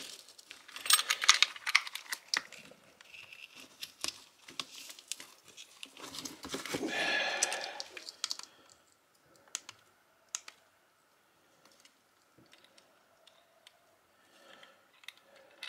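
Frozen perch and ide being handled and shifted in a pile by hand: quick clusters of small clicks and knocks at first, a longer rustle about six seconds in, then only scattered faint ticks.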